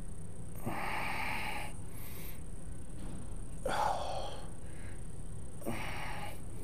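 A person's slow, audible breaths, three of them spaced a couple of seconds apart, over a steady low room hum.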